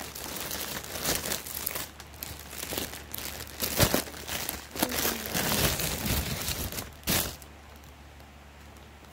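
Plastic packaging crinkling and rustling in irregular handfuls as a sneaker is unwrapped, stopping near the end.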